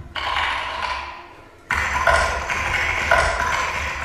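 Stage music from a live dance performance: sharp, ringing struck chords, one just after the start and another about a second and a half later, each dying away slowly over a low hum.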